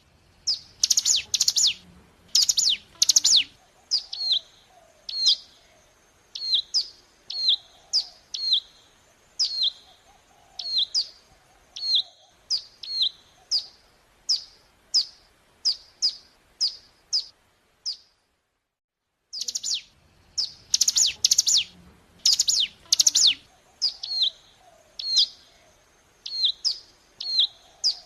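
Recorded song of a ciblek gunung, a mountain prinia: a burst of rapid, loud, high chirps, then a steady series of short down-slurred chirps at about one and a half a second. About 18 seconds in it cuts out for a second and the same sequence starts over, a looped lure recording played to provoke caged birds into singing.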